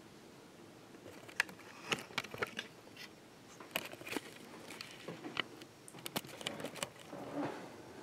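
Irregular clicks, taps and light scraping from a camera being handled and repositioned. There are a dozen or so sharp clicks over several seconds and a brief rustle near the end.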